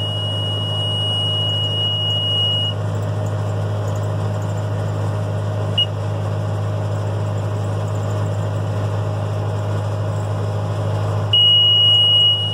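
John Deere 6400 tractor's diesel engine running steadily while the New Holland 648 round baler's monitor gives a long, high, steady beep at the start, a short blip about halfway, and the long beep again near the end. The beep is the baler's signal that the bale has reached its set size and it is time to stop and tie.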